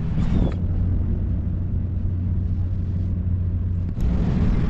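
A steady, low engine hum runs throughout, with a sharp click about four seconds in.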